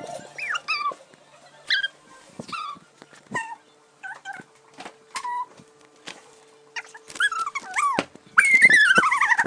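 A dog whining and yipping in short, high-pitched calls that slide down in pitch. The calls grow louder and come close together near the end.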